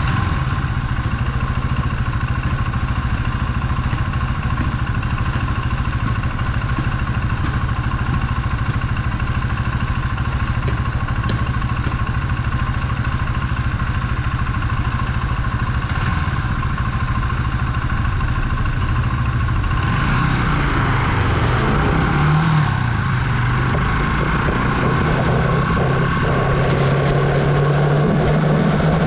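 Archive AM60 125cc single-cylinder motorcycle engine idling steadily. About two-thirds of the way in it revs up and down as the bike pulls away, then runs at a steady, higher pitch.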